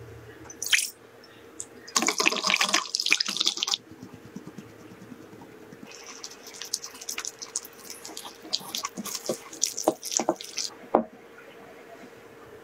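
Milk and oil poured from a glass jug into a glass mixing bowl for about two seconds, then a wire whisk clicking and scraping against the glass as it stirs a cocoa mixture for several seconds, with a single sharp knock near the end.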